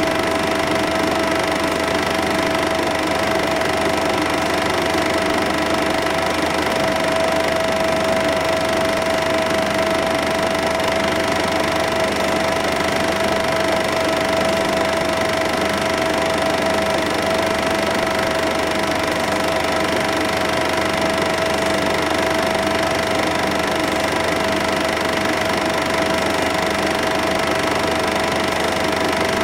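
Cine film projector running: a steady mechanical whirr with one strong unchanging tone over it.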